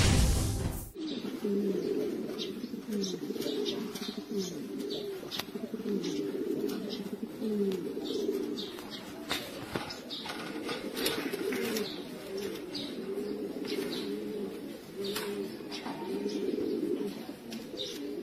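Domestic fancy pigeons cooing continuously in overlapping low, wavering calls, with scattered sharp clicks. The tail of a loud intro sound cuts off about a second in.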